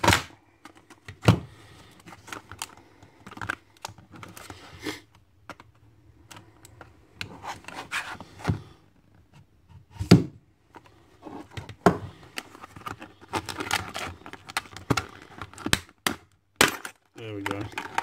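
Stiff clear plastic clamshell packaging being cut and pried open with a knife: irregular crackling and scraping with several sharp snaps and knocks.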